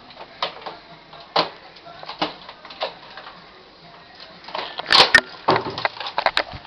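Plastic clicks and knocks from a Nerf blaster being handled and loaded on the floor. A few separate clicks come in the first three seconds, then a busier run of clatter about four and a half seconds in, led by two sharp snaps close together.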